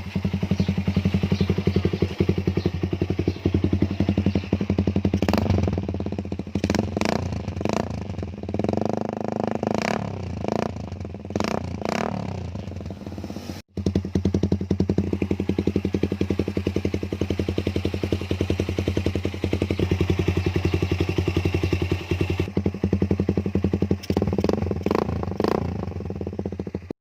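Motorcycle with a Daeng aftermarket exhaust pipe, its silencer insert taken out, running loud with a fast, even exhaust beat and revved in a string of short blips several seconds in and again near the end. The sound cuts out briefly about halfway.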